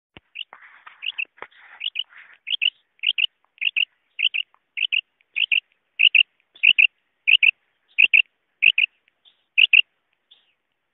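Female common quail calling: a short two-note 'karik' repeated at an even pace, about every 0.6 seconds, some fifteen times, stopping near the end.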